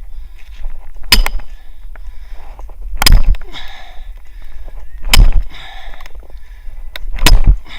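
Four heavy strikes of a chopping tool into firewood, about two seconds apart, each a sharp crack with a short tail: wood being split by hand.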